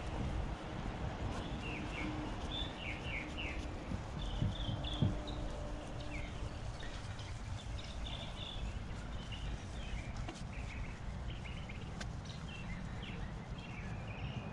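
Birds chirping on and off over a steady low background rumble of outdoor noise.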